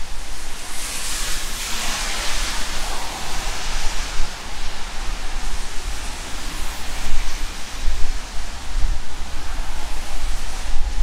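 Steady rain on a city street with the hiss of traffic on wet asphalt. A louder hiss swells about a second in and fades by about four seconds, like a car passing on the wet road.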